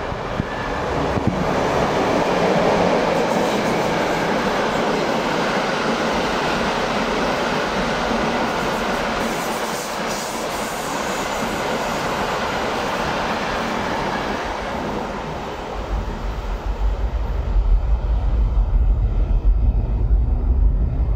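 EP09 electric locomotive hauling a train of Intercity passenger coaches passing through the station without stopping: a steady rush of wheels on rail and coach noise, loudest in the first few seconds and easing off after about fifteen seconds. A low, uneven rumble then takes over near the end.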